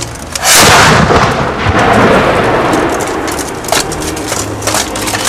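A small muzzle-loading gunpowder cannon firing once, about half a second in: a loud blast followed by a long rolling rumble that slowly fades.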